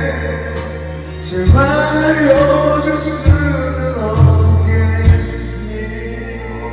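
A Korean pop ballad played as a karaoke backing track, with a male voice singing over a bass line and heavy beats. After about five seconds the bass and beats drop out and the music thins.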